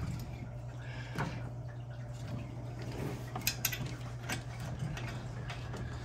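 Small metal clicks and clinks of chrome hose fittings being handled and threaded onto a brass hose-bibb valve, several of them in the middle stretch. A steady low hum runs underneath.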